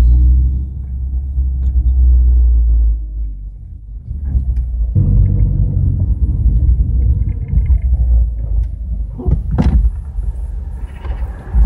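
SEAT Ibiza engine, tuned by JE Design to 170 hp, pulling hard under acceleration, heard from inside the cabin as a deep, loud drone. A few seconds in it drops away for over a second, then comes back abruptly, as at a gear change.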